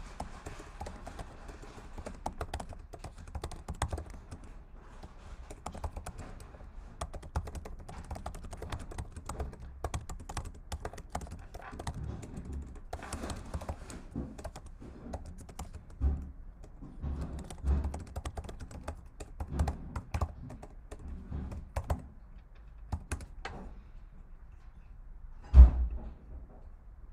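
Typing on a computer keyboard: a steady run of irregular key clicks, picked up through a video-call microphone. A few low thumps come in the second half, the loudest near the end.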